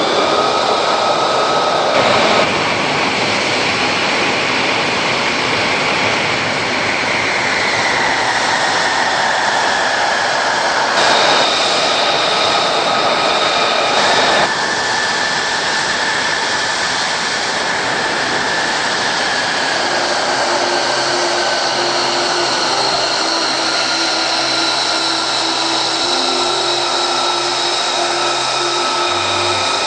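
Aircraft turbine engines running loud: a steady rush with high whining tones that slowly fall in pitch, the sound jumping abruptly a few times.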